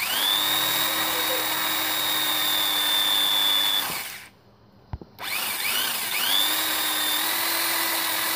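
Handheld electric drill boring into a wooden strip: the motor spins up, runs steadily for about four seconds and winds down. After a short pause with a single click, it spins up again and runs on.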